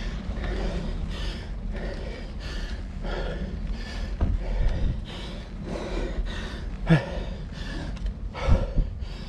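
Heavy, fast breathing of a cyclist labouring up a steep climb, about two breaths a second, over low wind rumble on the microphone. Two louder, sharper breaths come near the end.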